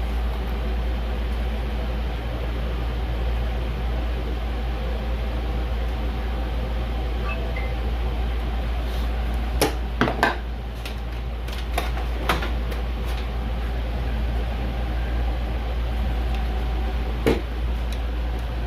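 Steady low hum with a few sharp clicks and taps from computer parts being handled: three close together about ten seconds in, one a couple of seconds later, and one near the end.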